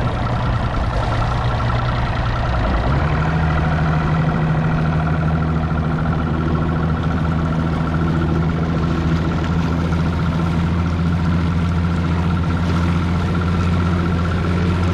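Boat's outboard motor running steadily under way. Its low hum steps up in pitch about three seconds in and then holds.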